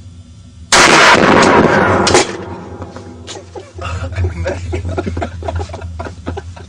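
A single gunshot about a second in, loud enough to overload the recording, with a long ring-out afterwards. Then a jumble of softer knocks and rustles.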